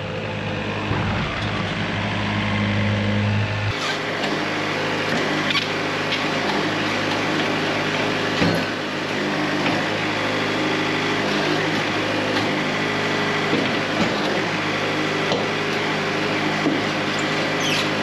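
Wood-Mizer LT70 Super Wide portable sawmill running: a steady machine drone with several held tones. The low hum drops away suddenly about four seconds in, and a few light knocks come through.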